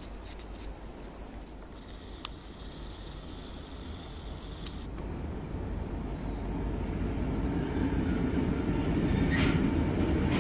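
Freight train rolling across a steel truss railway bridge: a low rumble of wheels on rail that grows steadily louder. A single sharp click comes about two seconds in, and brief higher wheel squeals come near the end.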